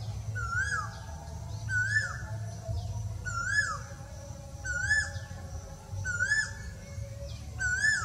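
Male Asian koel calling: one clear note that swoops up and then drops, repeated six times at a steady pace of about one every second and a half.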